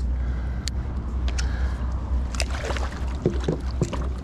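Water splashing and sloshing beside a kayak as a hooked barracuda thrashes at the surface: a string of short splashes and knocks over a steady low rumble.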